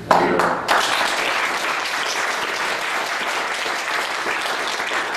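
Audience applauding: a few single claps, then full, steady applause from under a second in.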